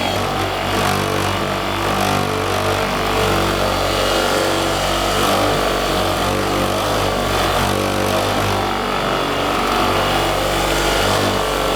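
Electric buffer running steadily, its buffing pad working wax off a powder-coated metal toolbox.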